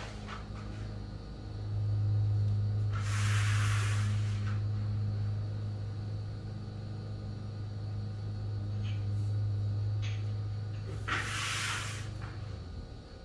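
Low, steady drone of a lawn mower engine running outside the house, heard indoors, dying away near the end. Two brief swishing noises come about three and eleven seconds in.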